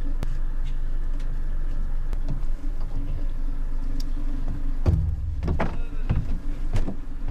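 A steady low mechanical hum. About five seconds in it gives way to a heavy thud and then a few more thumps, footsteps on the boat's deck.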